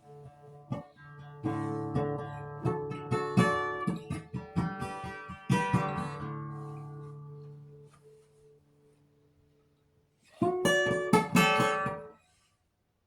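Acoustic guitar played with picked notes and strummed chords that ring out and die away, then a short burst of quick strums about ten seconds in that stops abruptly.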